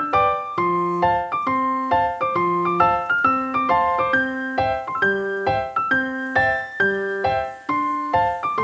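Piano music: an even, flowing pattern of struck notes, a few a second, over a low bass note that changes about once a second.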